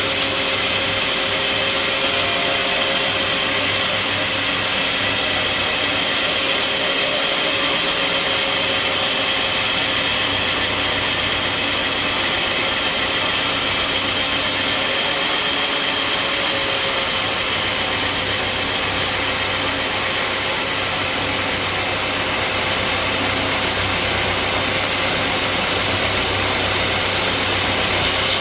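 Sawmill machinery running steadily, a constant loud mechanical whine and hiss with no breaks.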